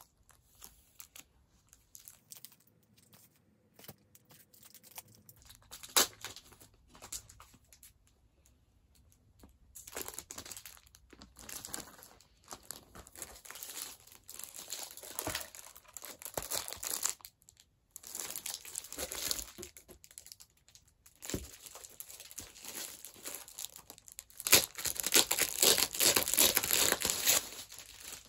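Clear plastic sleeves and paper rustling and crinkling as hands handle a large photobook and its packaging. It comes in short irregular spells that get busier and louder over the last few seconds.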